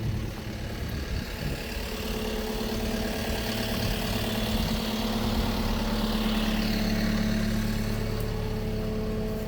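An engine idling steadily: a low, even hum with a few constant tones that grows slightly louder through the middle.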